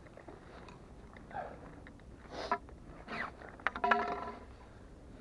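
Fishing rod sections being handled during take-down: faint scrapes and a few clicks, with several short pitched sounds, the clearest about two and a half and four seconds in.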